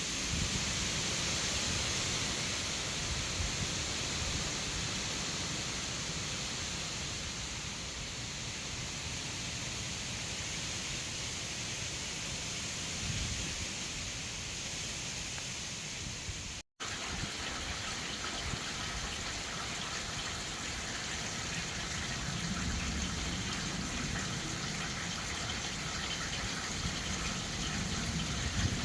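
Gusty storm wind blowing across the microphone: a steady rushing hiss with low rumbling buffets. The sound cuts out for an instant about two-thirds of the way through.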